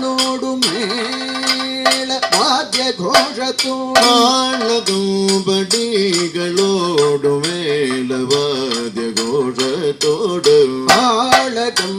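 Kathakali music: male voices singing the padam's melody, opening on a long held note and then moving through ornamented, wavering phrases, accompanied by frequent sharp chenda drum strokes.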